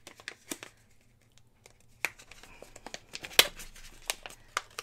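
Plastic gift bag crinkling and rustling as it is opened and its contents handled, with scattered sharp crackles; the loudest comes about three and a half seconds in.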